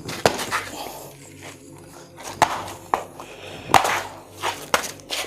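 A series of irregular sharp knocks and scuffs, about seven in a few seconds, over a faint steady low hum.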